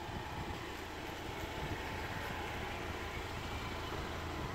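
Steady low rumble of a vehicle engine idling, with no distinct events.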